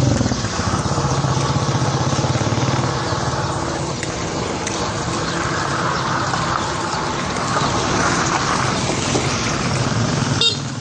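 Motor vehicle engine running steadily, with outdoor street noise.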